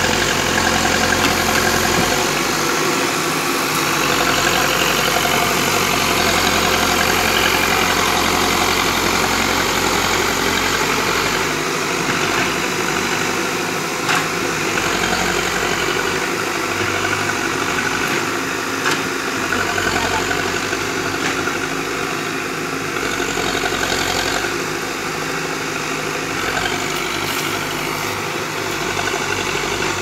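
JCB 3DX backhoe loader's diesel engine running steadily while the machine works a dirt bank with its front loader bucket, with a few short knocks along the way.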